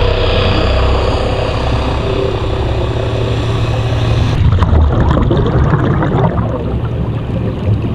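Boat machinery heard underwater: a steady low drone with held tones. About halfway through the high hiss drops away and a dense crackling comes in.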